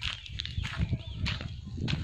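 Footsteps on rough ground, a short knock about every half second, over a low rumble, with small birds chirping briefly in the background.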